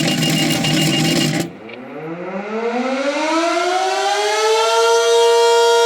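Electromechanical fire siren winding up from about a second and a half in, its pitch rising steadily until it levels off and holds a steady tone near the end, the weekly siren test. Before that, a noisy buzz with a faint steady high tone cuts off abruptly.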